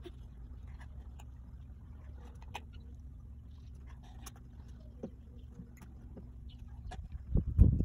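Steady low outdoor hum with faint scattered ticks and clicks. About seven seconds in, a run of loud, irregular low thumps and rumbles begins.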